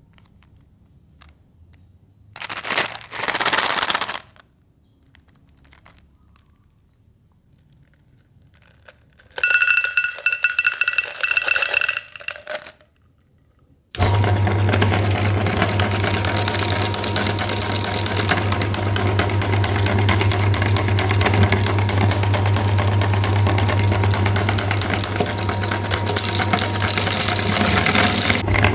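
Two short bursts of hard rattling, then an electric meat grinder switches on about halfway through and runs steadily with a low motor hum and dense crackling as it crushes hard candy.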